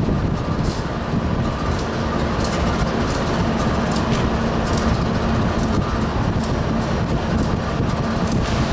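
Diesel freight locomotives running with a steady low drone as a train approaches, with faint clicks of wheels on the rails.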